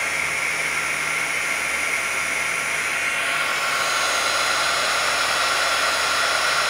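Heat gun blowing steadily while shrinking heat-shrink tubing over soldered wire joints. Its whine sags slightly lower in pitch about halfway through as the sound grows a little louder.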